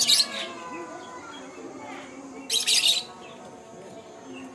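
A bird giving two short, harsh, raspy calls, one at the start and one about two and a half seconds later.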